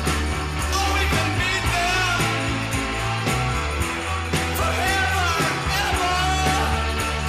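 A song with a singer over drums and bass, used as background music.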